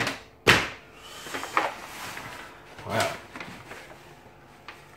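Brown kraft packing paper rustling and crinkling as a wooden guitar body is handled and lifted off it, with one sharp knock about half a second in.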